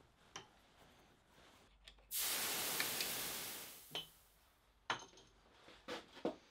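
Aerosol can spraying cutting oil onto a threaded steel rod and milling cutter: a hiss of about a second and a half that tails off. A few light metallic clicks and taps come before and after it.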